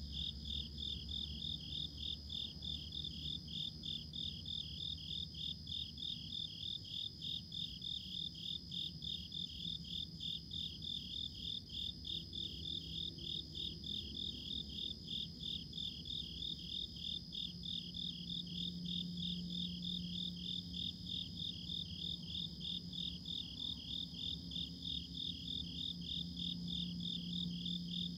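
Crickets chirping in a steady, even rhythm of a few chirps a second, over a continuous higher-pitched insect trill, with a low hum underneath.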